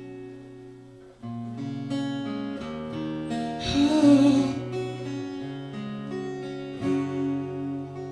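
Acoustic guitar playing an instrumental passage of chords between sung verses of a song, with a short, louder, breathy sound about four seconds in.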